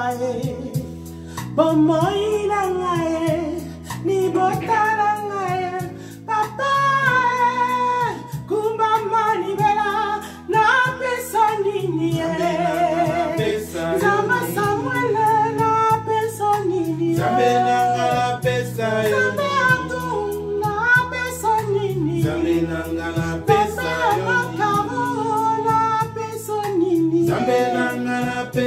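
A woman singing a melody in phrases over backing music with a steady beat.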